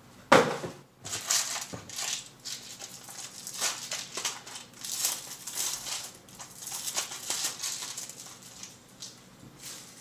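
Packaging being handled and opened: irregular rustling, crinkling and crackling, with one sharp loud noise just after the start.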